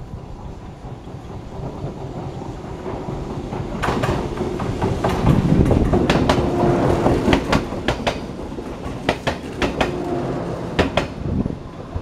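Train passing close by, its wheels clacking over the rail joints in a run of sharp clicks over a rumble, swelling about four seconds in and easing off near the end.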